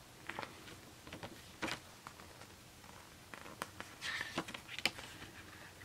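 Faint rustling and light clicks of a paper booklet being held and its pages turned, with a fuller rustle of a page turning about four seconds in.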